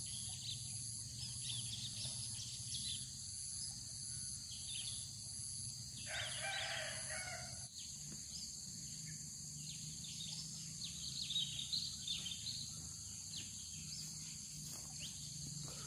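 Rural outdoor ambience of insects buzzing steadily and small birds chirping, with a rooster crowing once about six seconds in.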